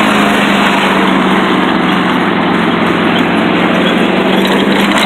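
Riding lawn mower engine running steadily and loud up close, with an unchanging low hum.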